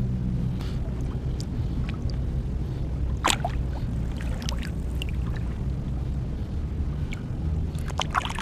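Shallow seawater sloshing and splashing as a hand feels through the sandy bottom for shellfish, with a sharp splash about three seconds in and a cluster of splashes near the end. A steady low rumble runs underneath.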